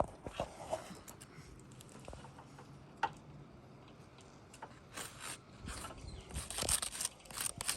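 Brittle asphalt roof shingles being pried up: scattered scrapes and clicks, busier in the second half.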